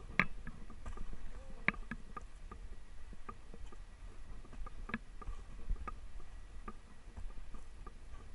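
Dog sled running over packed snow: irregular sharp knocks and creaks from the sled over a low steady rumble.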